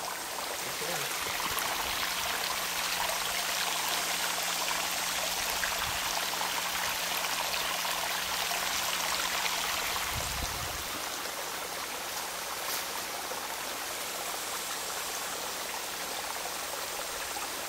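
Water running over the rocks of a small garden stream and cascade, a steady splashing hiss, a little louder in the first half.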